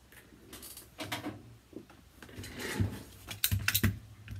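Craft supplies being handled on a work table: a rustle and a scatter of sharp clicks and knocks, with a quick run of about four clicks near the end.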